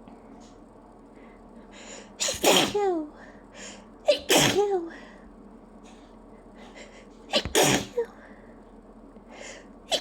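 A person sneezing from hay fever: three loud, sharp sneezes about two to three seconds apart, each ending in a short vocal sound that falls in pitch, with a fourth starting at the very end. Quick short breaths come between the sneezes.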